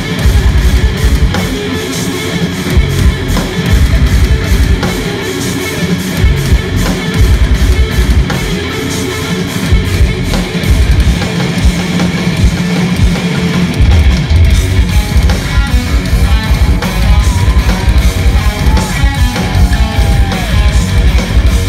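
An instrumental progressive metal band playing live: eight-string electric guitars over a drum kit with rapid, dense kick-drum hits. The recording is loud and heavy in the low end, with no vocals.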